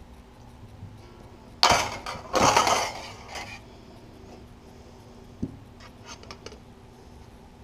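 Sheet-metal parts and a hand hole punch clanking: two loud metallic clanks a little under a second apart with a clattering ring, then a lighter knock and a few small clicks.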